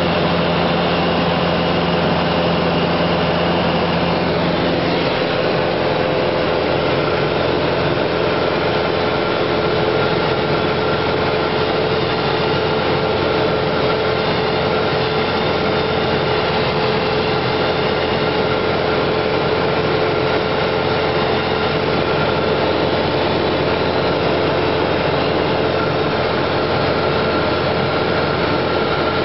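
Light aircraft's engine and propeller droning steadily in flight, heard loud inside the cabin, with a slight change in tone about five seconds in.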